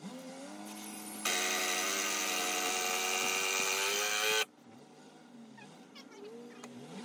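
Power drill running hard under load for about three seconds, starting about a second in, its pitch rising slightly, then cutting off suddenly.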